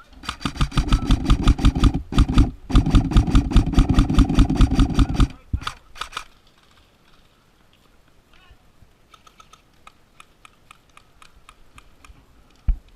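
Airsoft gun firing full-auto close by in two long bursts of rapid, evenly spaced shots, then a couple of single shots. Fainter, sparser gunfire follows further off, then a single thump near the end.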